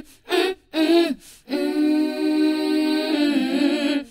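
A cappella vocal jingle: two short sung notes, then one long held note that steps down near the end.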